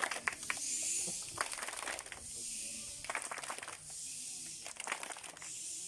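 Scattered hand claps from a crowd of children, irregular, bunched in the first second and a half and again around three seconds in, over a steady hiss.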